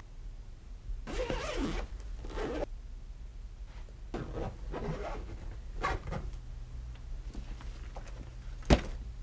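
Soft fabric suitcase being zipped shut in several rasping pulls, then a single sharp click near the end.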